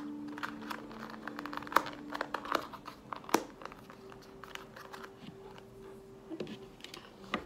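Plastic wrapping on small L.O.L. Surprise doll pieces crinkling and rustling as it is peeled and torn open by hand, in irregular clicks and crackles.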